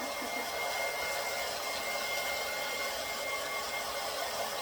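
Blow dryer running steadily while drying a freshly bathed dog's fur: an even rushing hiss with a thin steady whine over it.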